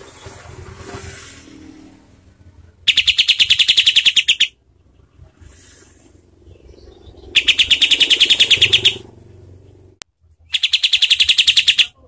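Kapas tembak, a caged bulbul, giving three loud bursts of rapid-fire, tightly packed harsh notes, each burst about a second and a half long.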